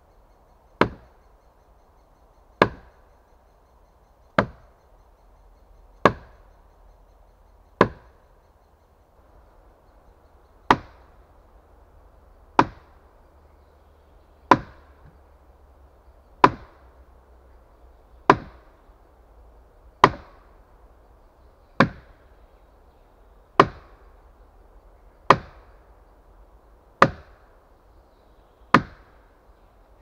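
Heavy wooden mallet striking wood: sharp, solid wood-on-wood blows at a steady pace, roughly one every two seconds, with a slightly longer pause about eight seconds in.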